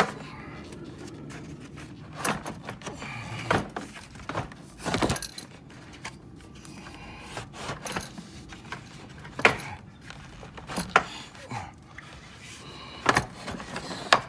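The plastic dual electric cooling-fan shroud of a 2011 Cadillac Escalade being worked out of the engine bay: irregular plastic knocks, clicks and scraping as it catches on the radiator and transmission oil cooler lines, with a few sharper knocks near the start and in the second half.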